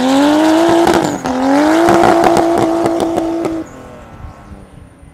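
Datsun 280Z drift car's engine held at high revs through a drift, over a haze of tyre noise. Its pitch climbs, dips briefly about a second in, climbs again and holds steady. The engine note drops away sharply about three and a half seconds in and fades out.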